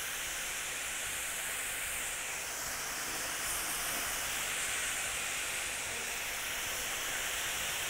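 Marinated meat and lamb chops sizzling steadily on a hot grill plate, a continuous hiss.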